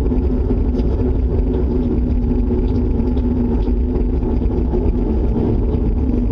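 Loud, steady deep rumble with a constant hum in it, going on without a break. This is the unexplained outdoor noise that the listeners first feared was an approaching tornado.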